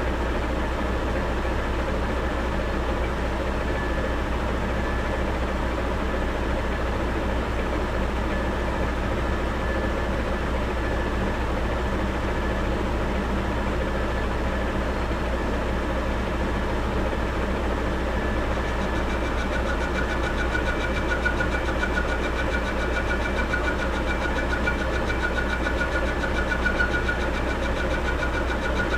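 South Bend 14-1/2 lathe running steadily under power, turning a workpiece with a constant hum from its motor and drive. About two-thirds through, a thin high whine joins in.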